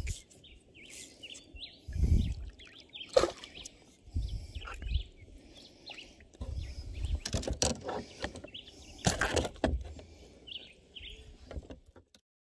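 Birds chirping, with irregular knocks and low bumps from a freshly caught peacock bass and fly-fishing gear being handled on a plastic kayak. All sound cuts off about half a second before the end.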